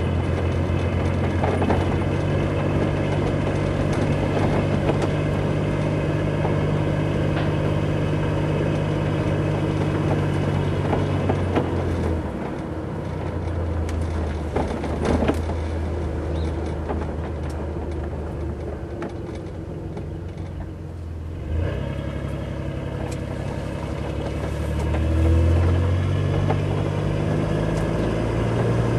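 Car engine and road noise heard inside the cabin of a moving vehicle. The engine hum is steady, drops off about twelve seconds in, is quietest around twenty seconds, then picks up again and rises near twenty-five seconds as the car speeds up. There are a few short knocks about halfway through.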